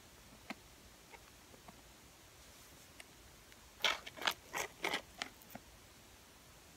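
Fingers picking a crispy curly fry out of a paper fry carton: a quick cluster of dry crackles and rustles about four seconds in, after a few faint clicks.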